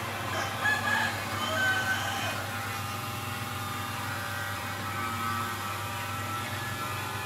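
A few faint, short bird calls in the first two seconds or so, over a steady low hum.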